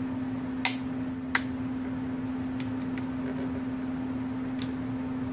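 Torque wrench on an engine bolt giving two sharp clicks about a second in, the sign that it has reached its set torque of 28 newton metres, over a steady low hum.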